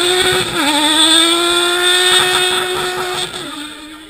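Ice-racing car's engine held at high revs as the car slides through a snow-and-ice corner. The pitch dips briefly about half a second in and again near the end, then the sound fades as the car pulls away.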